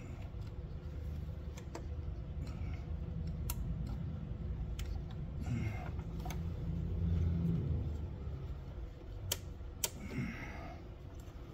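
Scattered sharp metallic clicks and clinks as a port fuel injector rail is worked loose and lifted out of the engine's intake, over a steady low hum.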